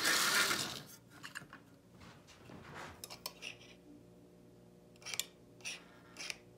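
Metal wheels of a Marx 595 toy steam locomotive scraping and clattering on tinplate three-rail track as it is handled, for about the first second. After that comes a faint steady hum with a few light clicks, while the locomotive stands still on the rails.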